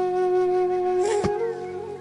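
Instrumental background music: a long, steady held note that moves to a new note a little over a second in.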